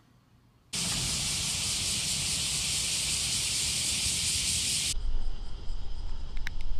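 A steady, loud hiss starts sharply about a second in and cuts off abruptly after about four seconds. It gives way to low wind rumble on the microphone with faint clicks.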